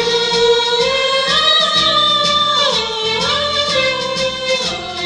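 Vocal ensemble singing into microphones through the hall's speakers, a lead voice holding long notes that slide up and then back down over the other voices.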